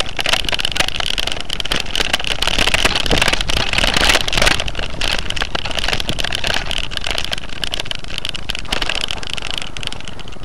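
Wind rushing over the microphone and a road bike with no proper suspension rattling over bumpy grass on a fast downhill ride: a steady loud rush with many small knocks, loudest about halfway through and easing near the end.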